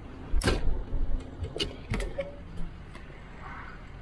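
A handful of sharp, irregular knocks and rattles inside a moving bus, over the low steady rumble of the bus on the road. The knocks come from the loosely perched camera jolting as the bus rides, and stop after about three seconds.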